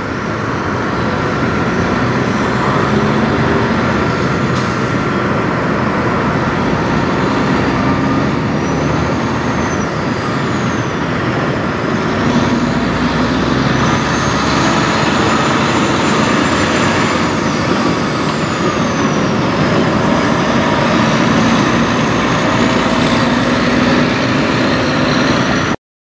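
A 1999 Freightliner semi truck's diesel engine running under load as the truck pulls a trailer away and drives past, with a high whine that rises and falls several times through the middle. The sound cuts off suddenly near the end.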